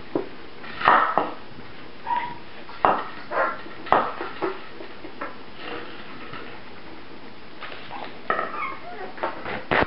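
Five-week-old puppies yipping and whimpering as they play, in short irregular bursts. A plastic soda bottle knocks and rattles on the tile floor as they paw at it.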